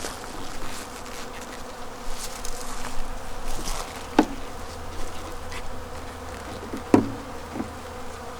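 Honeybees buzzing steadily around an opened hive, a constant hum, with two sharp knocks about four and seven seconds in.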